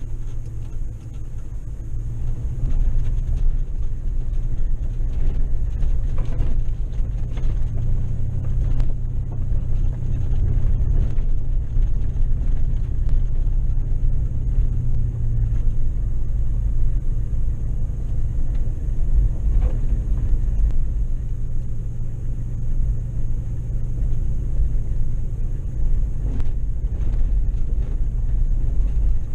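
Vehicle driving along a dirt road, heard from inside the cab: a steady low rumble of engine and tyres, with scattered faint clicks and knocks.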